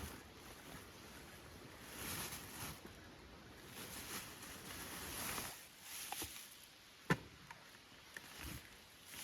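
Rustling and shuffling of camp gear being handled, in swells, with a single sharp click about seven seconds in.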